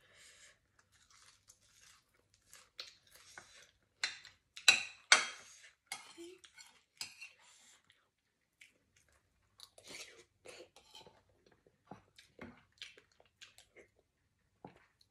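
A metal spoon clinking and scraping on a ceramic plate, mixed with close-up chewing of salad as someone eats. The sharpest, loudest clatters come about four to five seconds in.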